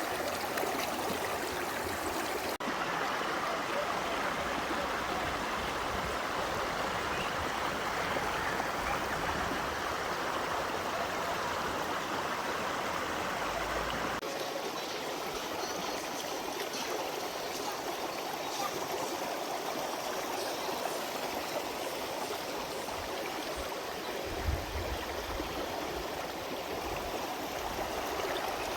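Valley stream water flowing steadily, a constant rushing hiss whose character shifts abruptly twice. A brief low bump near the end.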